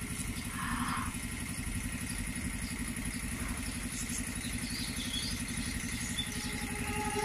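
An engine running steadily with a fast, even low throb.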